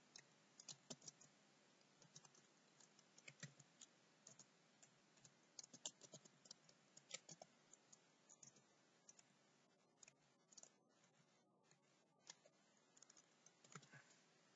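Faint typing on a computer keyboard: short, irregular clicks of keys coming in bursts, sparser for a few seconds after the middle.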